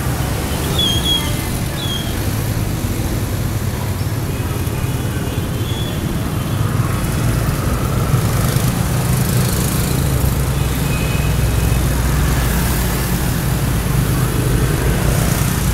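Steady street traffic, mostly motorbikes and scooters running, with a few brief high tones in the first two seconds and again midway.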